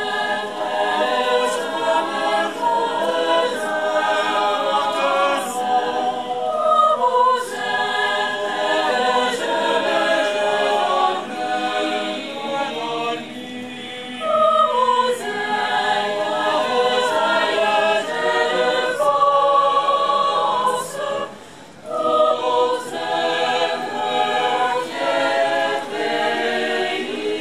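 Mixed choir of young men and women singing a cappella in several parts, in sustained phrases with two short pauses between them.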